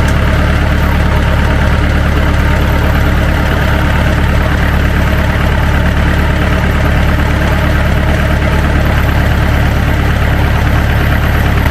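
Tractor engine idling steadily at a constant speed.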